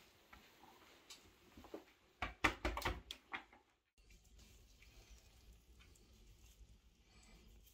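Quiet close handling sounds: a short burst of sharp crackles and clicks about two to three seconds in, then faint rustling and a low hum.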